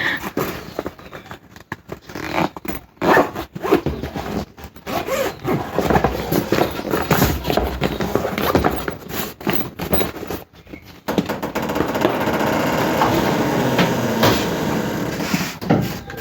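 Packaging being handled during an unboxing: irregular scrapes, rubs and knocks, then a steadier scraping rustle lasting about four seconds near the end.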